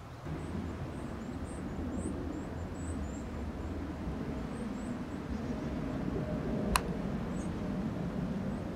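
Steady low outdoor rumble, with faint high bird chirps over the first few seconds and one sharp click about two-thirds of the way through.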